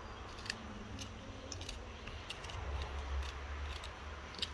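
Small kitchen knife cutting through a sweet pepper held in the hand, with a series of short, crisp clicks at irregular intervals, about eight in all, over a low steady rumble.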